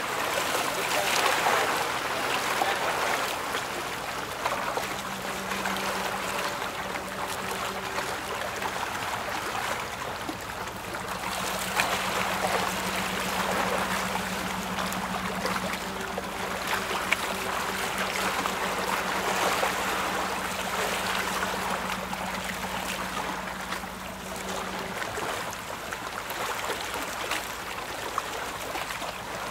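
Choppy river water washing and splashing around moving boats. A steady low engine hum sets in about five seconds in and stops a few seconds before the end.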